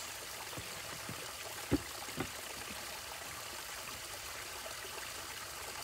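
Steady trickle of running water in a backyard pond, with two short sharp knocks about one and a half and two seconds in.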